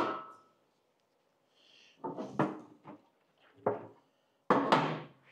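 A sharp knock, then a series of separate knocks and clunks from objects being picked up and set down while a saw part is cleaned.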